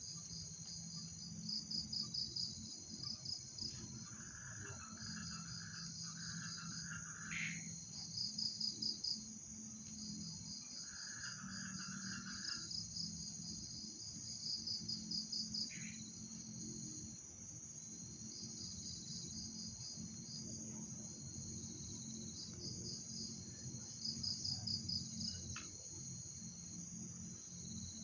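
Crickets and other night insects chirping: a steady high-pitched trill, with a louder pulsing chirp that comes in bursts of a second or two, several times over. A lower buzzing call joins twice.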